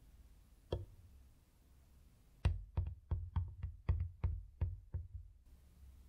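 A single knock under a second in, then a short round of about ten hand claps, roughly three a second.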